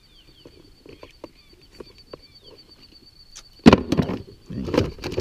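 Light clicks and small knocks of metal fishing pliers and tackle while a hook is worked out of a small traíra, over a steady high thin trill and faint chirps. A little over halfway through, louder rustling and knocks start as a fish-lip grip is picked up and handled close by.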